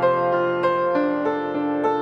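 Soft background piano music: a slow melody of single struck notes over held lower notes.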